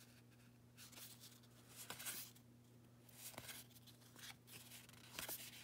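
Faint rustling and soft clicks of Topps Heritage baseball cards being slid one behind another in the hand, in several short bursts, over a low steady hum.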